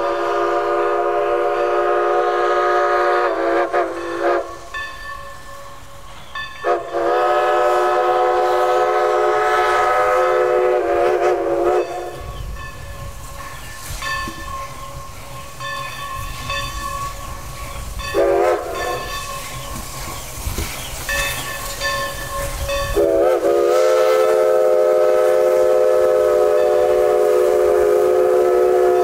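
Steam locomotive whistle blown in the grade-crossing pattern: two long blasts, a short one, and a final long one still sounding at the end. Between the second and third blasts the locomotive's low exhaust rumble and rail noise can be heard as it approaches.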